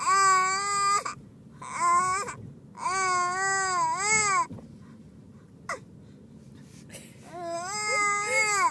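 Infant crying in four bursts, the pitch wavering up and down within each cry. Between the second-to-last and last cry there is a single brief sharp sound like a hiccup.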